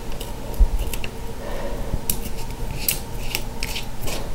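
A small screwdriver backing a tiny Phillips screw out of a model locomotive's chassis: light scraping, then a run of short sharp clicks in the second half.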